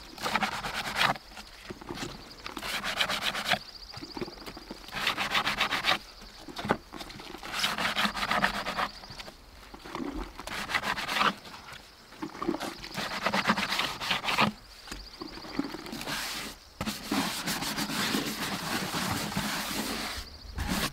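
A hand scrub brush scrubbing a soapy plastic bird bath pan in repeated spells of quick back-and-forth strokes, with short pauses between spells.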